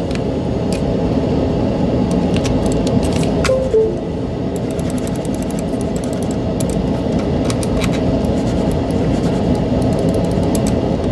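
Scattered sharp clicks from the buttons of a Logitech G903 gaming mouse, newly fitted with Omron D2F-F-3-7 switches, being tested after a double-click and drag-release repair. The clicks sit over a steady low rumble.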